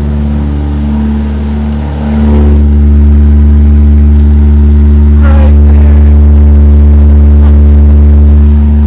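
Toyota Corolla GTS's 1.6-litre 4A-GE four-cylinder engine running steadily through a damaged exhaust that is really loud. About two seconds in it becomes much louder and stays so until near the end.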